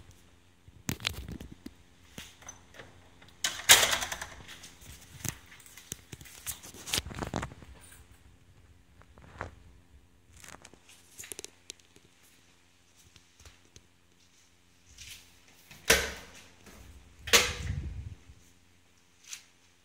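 Scattered knocks, thumps and clicks of doors and fittings being handled, the loudest a few seconds in and twice near the end, over a faint steady hum.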